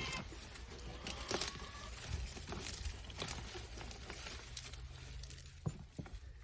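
Potato vines being pulled from a large container: scattered rustling and crackling of leaves and stems, thinning out near the end.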